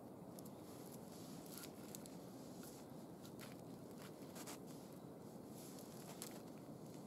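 Faint, scattered rustles and light scrapes as a cord is wound around a pine trunk and a log stake and pulled tight, over a steady faint hiss.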